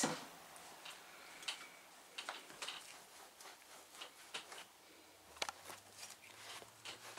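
Damp cloth wiping and rubbing the arm of a faux-leather (vinyl) recliner to clean it with soapy water: faint, irregular scuffing with small clicks, one sharper click about five seconds in.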